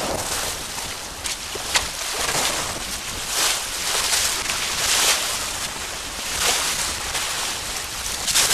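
Bow wave of a Maxi 95 sailboat rushing and splashing along the hull as it sails, swelling and easing every second or two as the boat meets the waves, with a couple of sharp splashes early on.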